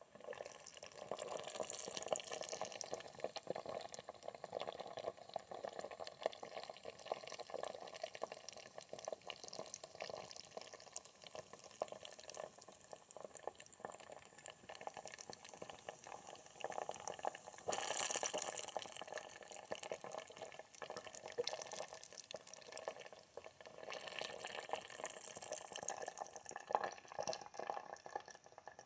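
Water boiling and sputtering in a small homemade steam engine boiler: a continuous crackling, bubbling noise full of fine pops, swelling a little about two-thirds of the way through.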